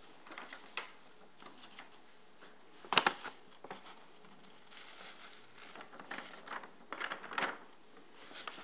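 Quiet handling noise: scattered rustling and small clicks of objects and paper being moved about, with one sharp knock about three seconds in.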